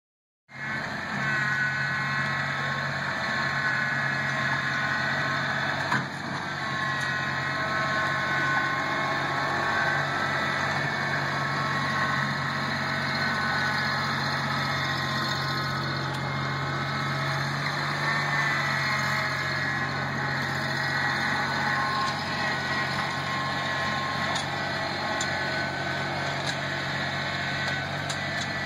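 Compact tractor engine running steadily at working speed while the tractor grades loose soil with its front-loader bucket. There is a brief dip about six seconds in.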